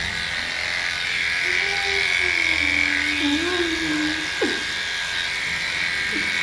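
Electric pet clipper buzzing steadily as it shaves a cat's fur. From about one and a half seconds in, a long, low, wavering moan rises over it, followed by a short falling cry about four seconds in: the cat complaining while it is held down.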